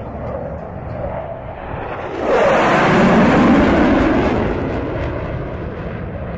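Two military jets on a low formation pass: jet engine noise swells suddenly about two seconds in, is loudest as they go by with its pitch dropping, then slowly fades.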